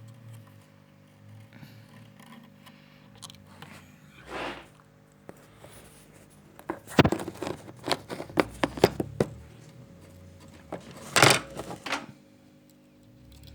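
Handling noises on a workbench: a quick run of sharp clicks and knocks, then a short louder rustling clack, over a faint steady electrical hum.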